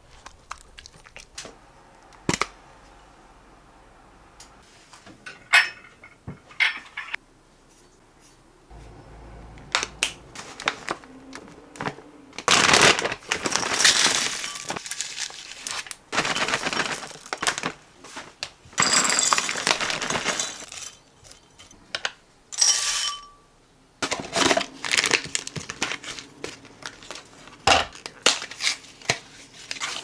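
Handling noises: crinkling and rustling with many scattered clicks and knocks, the rustling heaviest in a few stretches of a second or two in the middle.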